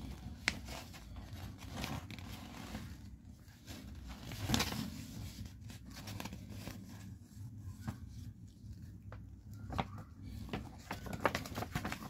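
Paper instruction manual being handled and its pages turned: scattered rustling and light crinkling with a few sharp clicks, a louder rustle about four and a half seconds in.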